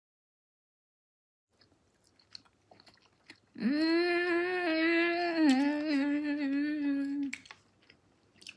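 A woman chewing a mouthful of raw scallop with soft mouth clicks, then humming a long closed-mouth "mmm" of enjoyment for nearly four seconds, dipping in pitch partway through, before the chewing clicks return.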